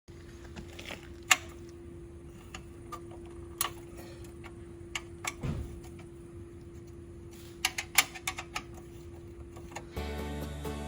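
Scattered sharp metallic clicks and clinks of hand tools and small metal parts being handled, over a steady hum; background music comes in near the end.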